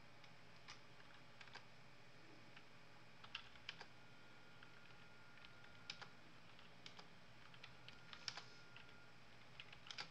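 Faint, irregular clicks of typing on a computer keyboard, some in quick clusters, over near silence.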